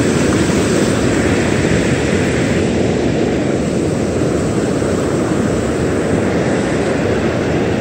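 Steady rush of surf breaking and washing up a sandy beach, with wind noise on the microphone. It is a continuous, even noise, strongest in the low range.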